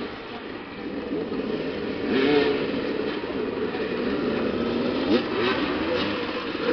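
Several motoball motorcycles running at once, their engines revving up and down in pitch as the riders manoeuvre around the ball, with a louder surge about two seconds in.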